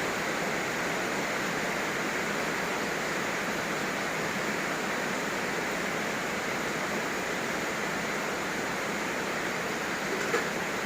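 Heavy rain falling, a steady even hiss, with one short click near the end.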